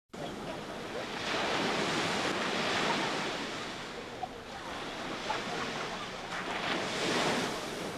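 Sea waves washing onto a sandy shore as a steady hiss of surf that swells about a second in and again near the end.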